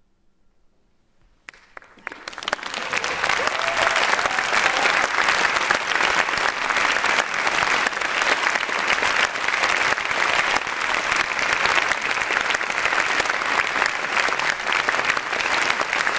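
Concert-hall audience applauding: a few claps break a near silence about a second and a half in, then swell quickly into steady, full applause.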